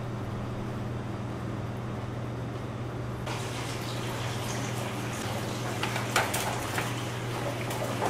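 Steady low electrical hum of kitchen equipment. About three seconds in, a steady hiss joins it, with a few light clicks and knocks around six seconds in.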